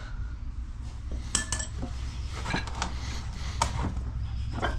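Steel tire spoons clinking against the rim of a cast mag wheel while a tubeless motorcycle tire's bead is levered on: a handful of sharp metallic clicks a second or so apart, over a steady low hum.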